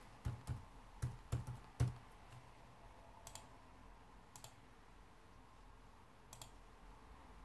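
Laptop keyboard keys tapped in a short run of clicks during the first two seconds, then a few single computer mouse clicks spaced a second or more apart.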